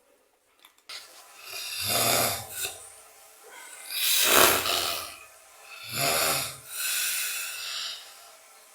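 A man snoring loudly and deeply, with rasping snores that sound like a pig. There are three snores about two seconds apart, starting about a second and a half in, and the middle one is the loudest. After the last comes a longer, breathy exhale.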